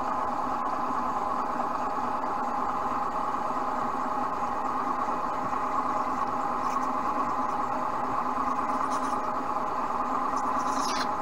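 Bench (pillar) drill motor running at a steady pitch as the bit is fed down toward a round bar held in a V-block for cross drilling, with a few short faint higher sounds in the second half.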